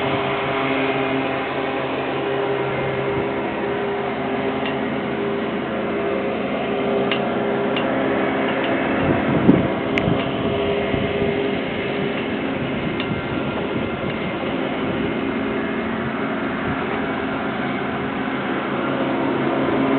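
Steady mechanical hum of running engines or machinery, with several held tones. About nine seconds in there is a brief louder rumble, followed by a sharp click, and the lowest tones drop away.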